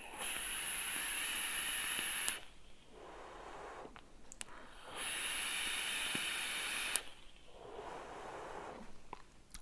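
Two long draws on a Vandy Vape Mato RDTA vape, each a steady hiss of about two seconds as air is pulled through the atomizer while the coil fires, followed by softer breathy exhales of vapour.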